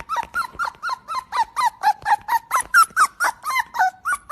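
A squeaky dog toy squeaking rapidly and regularly, about four squeaks a second, each a short high squeak that dips in pitch, as it is chewed.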